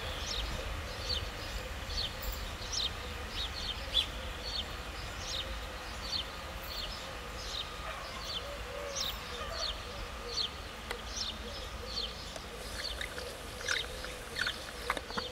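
Small songbirds chirping: many short, high chirps repeating several times a second, over a low, steady rumble.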